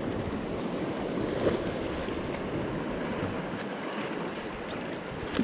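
Steady wash of water around a kayak, with wind noise on the microphone. A short faint knock comes about one and a half seconds in.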